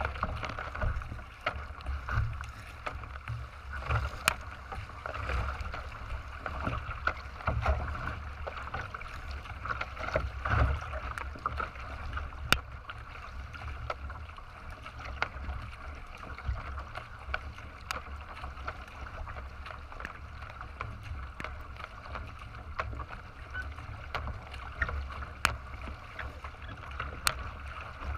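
Water rushing and splashing along the hull of a racing kayak under way, over a steady low wind rumble on the microphone, with a few sharp ticks.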